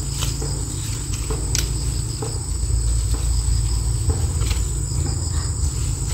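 A steady, high-pitched chorus of insects such as crickets or cicadas, over a low rumble, with a few scattered clicks and snaps of rustling undergrowth.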